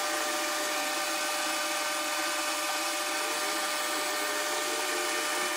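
Metal lathe running at about 200 RPM while a carbide insert cuts a stainless steel bar lubricated with cutting oil. A steady machine drone with a couple of constant whining tones over a hiss, holding an even level throughout.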